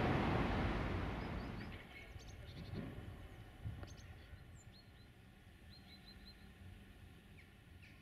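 Low rumble of a passing train fading away over the first two seconds, then faint high chirps of small birds in short runs.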